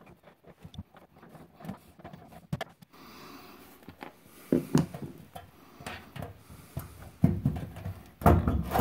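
Scattered clicks, knocks and scrapes of hands working loose the lower front access panel of a front-loading washer, as it is pried and pulled at its bottom edge. The handling grows louder near the end as the panel starts to come free.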